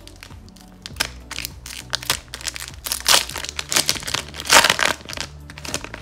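Thin clear plastic pack wrapper being peeled open and crinkled in the hands, a string of crackles with the loudest bursts about three and four and a half seconds in. Faint background music underneath.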